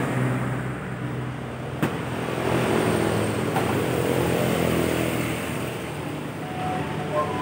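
Steady low motor-vehicle rumble, with a single sharp click about two seconds in.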